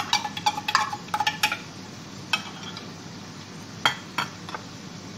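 A spoon clinking and scraping against a plate while food is served. There is a quick run of clinks in the first second and a half, then a few single clinks.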